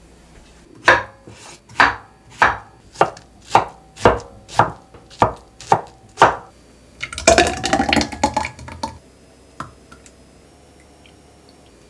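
A chef's knife chops strawberries on a wooden cutting board: about ten single strokes, roughly two a second. Then milk is poured into a tall glass for a couple of seconds, the gush rising in pitch as the glass fills.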